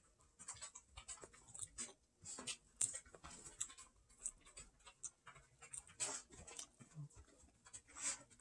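Faint eating sounds: a mouthful of instant ramen noodles being chewed, with irregular small wet clicks and mouth smacks and light touches of a fork in the noodle cup.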